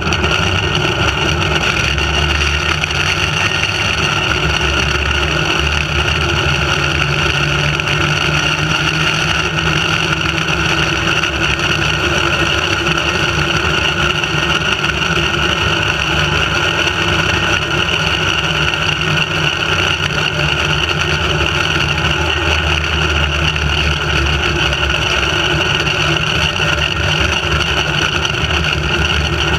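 Steady, loud rush of wind over a trolley-mounted camera's microphone together with the zipline trolley's pulleys running along the steel cable at speed, a constant rumbling rush with a steady whine in it.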